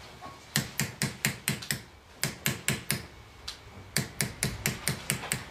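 Small hammer tapping a chisel into metal in quick runs of light, sharp strikes, about five or six a second, with short pauses between runs: the chasing of grooves in a metal base for zogan metal inlay.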